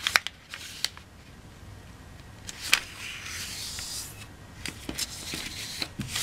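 Sheet of origami paper being folded in half into a triangle and creased by hand: sharp crackles and taps of the paper, with a longer rubbing hiss about three seconds in as fingers run along the fold.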